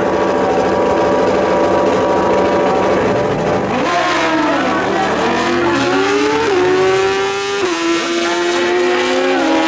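Two drag-racing motorcycles held at high steady revs on the starting line, then launching about four seconds in. Their engines climb in pitch and drop back at several upshifts as they accelerate down the strip.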